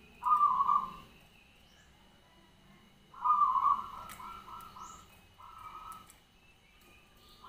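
Zebra dove (perkutut) cooing. A short coo comes about a quarter-second in, then about three seconds in a longer phrase of rapid stuttering notes, and a softer closing coo near six seconds.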